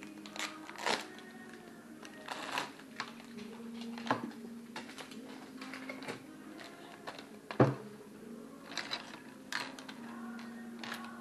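Fishing tackle and its plastic packaging handled on a table: scattered clicks and crinkles, with one sharp knock about seven and a half seconds in.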